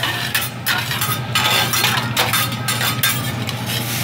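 Metal hibachi spatulas clinking and scraping on a steel teppanyaki griddle, a run of sharp clanks over a steady low hum.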